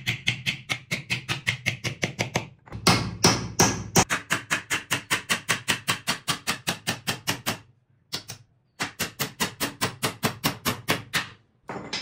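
Hammer driving nails into wooden battens: rapid, even blows about five a second, in three runs broken by short pauses, the loudest strikes about three seconds in.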